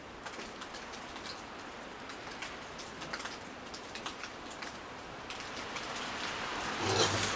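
Steady rain falling, an even hiss with scattered dripping ticks, growing slightly louder toward the end, with a brief louder noise about seven seconds in.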